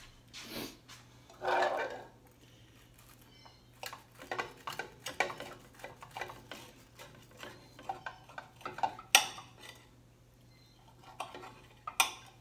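A table knife cutting through a Reuben sandwich on a ceramic plate: irregular scraping and sharp clinks of metal on china, loudest near the end. A brief pitched sound about a second and a half in.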